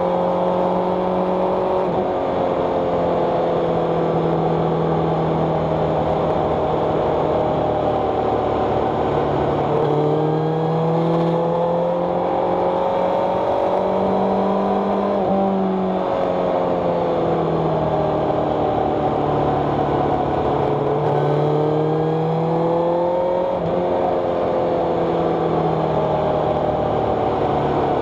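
Vehicle engine running, its pitch slowly rising and falling as the vehicle speeds up and slows down, with sudden drops in pitch a few times, as at gear changes.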